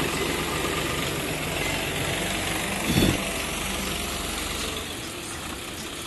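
Farm tractor's diesel engine idling steadily, with one short thump about halfway through.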